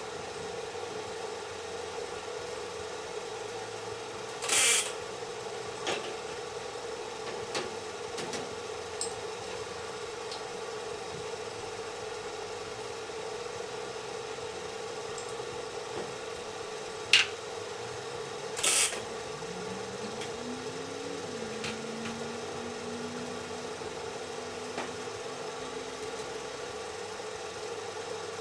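Workshop sounds over a steady hum: a few light taps and clicks, and two short hissing bursts about fourteen seconds apart.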